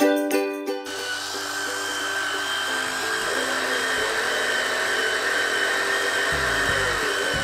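Theo Klein toy Bosch chainsaw playing its battery-powered electronic sawing sound, a steady motor-like buzz with a constant high whine, starting about a second in as plucked ukulele music stops.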